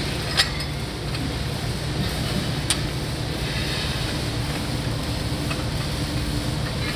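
Steel jounce bumper plate and its bolts clinking against a steel suspension bracket as they are handled and set in place: a sharp metal clink near the start and another about two seconds later, with a few fainter taps. A steady low shop hum sits underneath.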